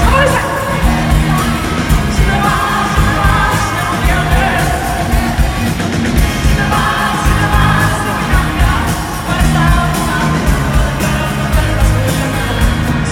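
Live pop-rock concert music, loud: a full band with a steady beat and a woman singing lead, with shouts from the crowd.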